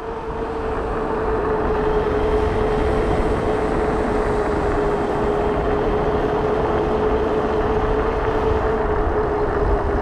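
Fat-tire mid-drive e-bike cruising at about 25 mph on pavement: a steady rush of wind and tire noise with a single steady whine held at one pitch, which drops slightly near the end.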